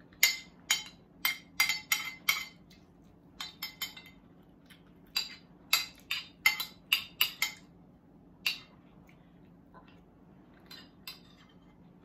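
Metal fork clinking and scraping against a ceramic plate while picking apart fish: about twenty sharp clinks in quick runs over the first eight seconds or so, then a few scattered ones near the end, over a faint steady low hum.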